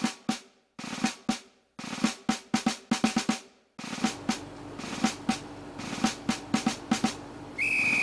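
Background march music led by snare-drum rolls and bass-drum strokes. It plays in short drum phrases with brief silences between them, then runs on without gaps from about four seconds in. A short high steady tone comes near the end.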